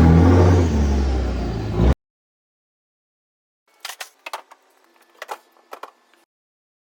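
Vehicle engine running loudly, swelling briefly just before it cuts off abruptly about two seconds in. Faint scattered clicks and knocks follow a couple of seconds later.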